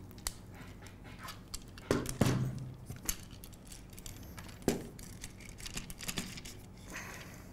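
Aluminium channel and metal brackets of a robot drivetrain chassis clinking and knocking as they are handled and fitted together. Scattered light clicks, with a few louder knocks about two seconds in and again near the middle.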